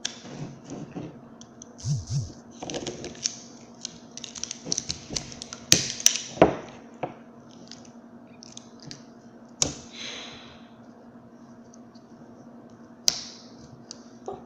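Knife cutting and prying at the plastic and rubber casing of a 9.6-volt battery pack: irregular clicks and short scrapes, with a few sharp cracks.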